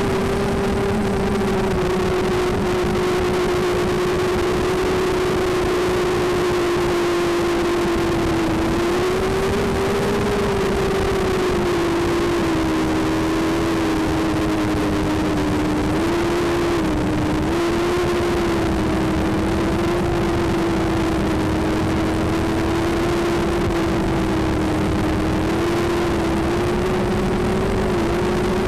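Racing quadcopter's electric motors and propellers whining, recorded through its onboard Mobius camera, holding a steady pitch with small dips and rises as the throttle changes, over a constant rushing noise.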